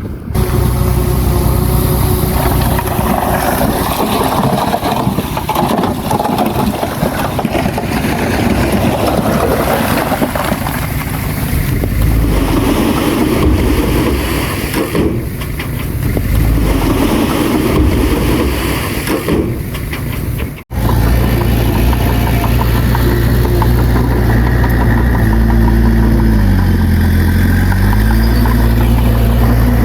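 Heavy diesel earthmoving machinery running under load, with a rough, varying engine noise and some clatter. It cuts off abruptly about two-thirds through and gives way to a steady engine drone, whose revs drop briefly and come back up near the end.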